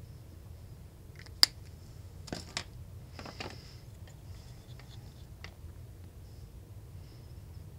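Soldering tools being handled at a circuit board during desoldering: a sharp click about one and a half seconds in, two more clicks around two and a half seconds, then a short scrape.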